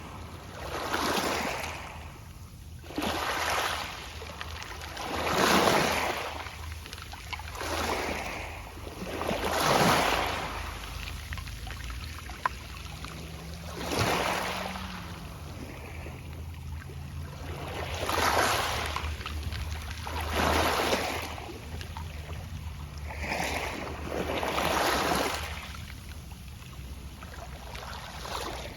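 Small sea waves breaking gently on a pebble beach and washing back, the pebbles rustling and rattling in the backwash, a fresh surge every two to four seconds.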